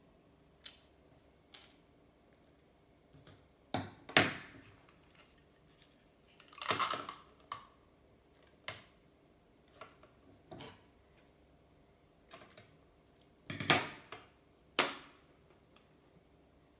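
Hands working clear tape and a piece of aluminium can shim onto a bicycle fork: scattered light clicks and taps, a short rustle of tape about seven seconds in, and a few sharper knocks, loudest around four seconds in and again near the end.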